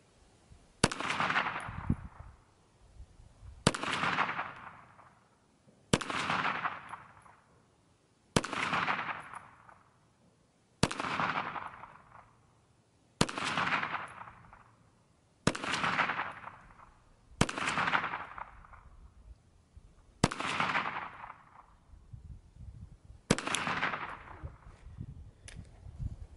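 KelTec PMR-30 .22 Magnum pistol firing ten single shots, one every two to three seconds, each followed by a trailing echo. The pistol fires and feeds every round without jamming.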